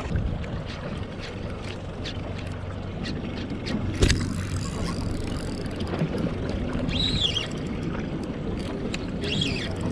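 Fishing boat's engine idling with a steady low hum under wind and water noise, with a sharp knock about four seconds in.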